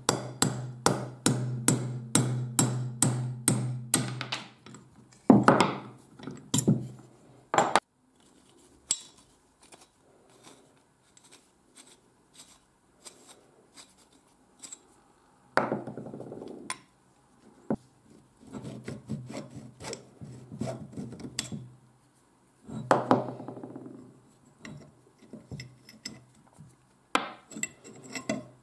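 Hammer tapping a steel punch set against the gear shaft of a 1940s two-speed breast drill, about three sharp taps a second for four seconds, then a few harder strikes. After that the drill's metal gears and frame are worked by hand, with rubbing and clinking of metal parts.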